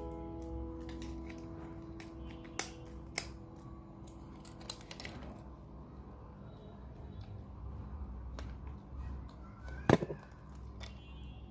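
Scattered small clicks and taps of hand tools on phone parts, the loudest about ten seconds in. Piano notes fade out in the first second or so.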